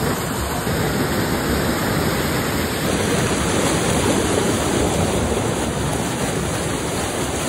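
Whitewater of a steep rocky stream rushing and splashing over boulders, a steady, even rush of water.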